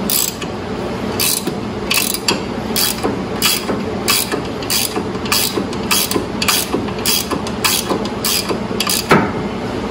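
Ratcheting wrench clicking in repeated swings, about one to two sharp clicks a second, as new 1/2-20 nylock jam nuts on a tracked slope mower's hub bushings are tightened until just snug.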